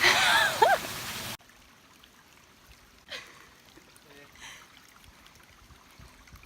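Rushing stream water, with a few short high sliding sounds over it, cutting off abruptly about a second and a half in. After that there is only faint background with a single light tap.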